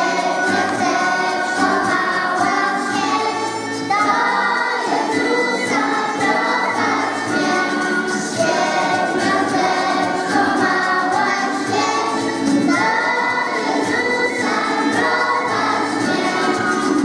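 A children's choir singing a Polish Christmas carol in chorus over musical accompaniment.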